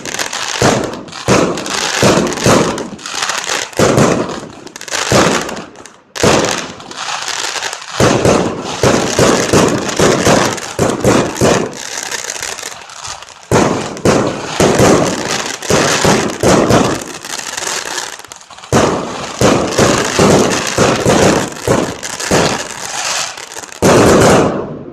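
Fireworks going off close by in rapid succession: a dense string of bangs and crackling, with a brief lull about six seconds in. It breaks off suddenly at the end.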